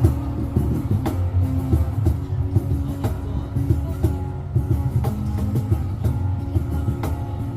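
Live rock band playing an instrumental intro: electric guitar over bass and drums with a steady beat.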